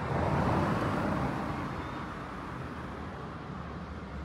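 A road vehicle passing close by: its tyre and engine noise swells in the first second, then eases into a steady low traffic rumble.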